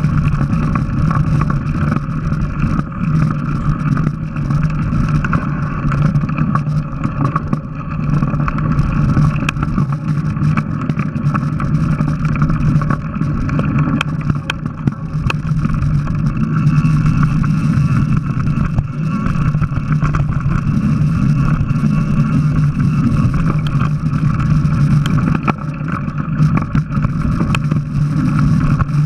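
Mountain bike riding down a dirt trail, heard through its onboard action camera: a steady, muffled rumble of tyres, wind and frame vibration, with a few sharp knocks from bumps partway through.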